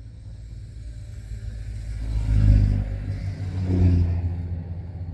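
A road vehicle passing close by, its engine and tyre rumble swelling to a peak about two and a half seconds in and again about four seconds in, then fading.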